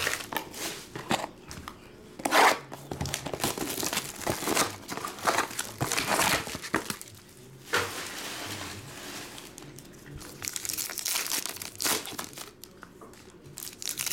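Foil trading-card pack wrappers crinkling and being torn open by hand, in irregular crackling rustles.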